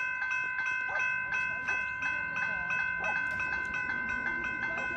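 Level crossing warning bell ringing steadily, about three strikes a second, while the boom gates are down: it warns that a train is approaching.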